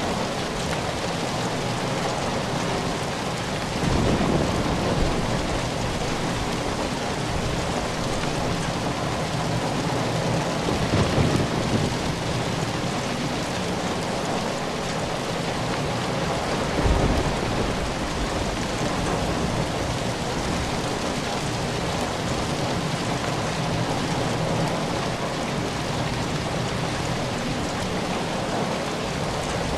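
Steady rain falling, with three brief low rumbles about 4, 11 and 17 seconds in.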